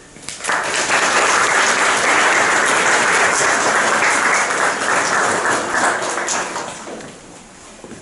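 Audience applauding. It starts about half a second in, holds steady, and dies away near the end.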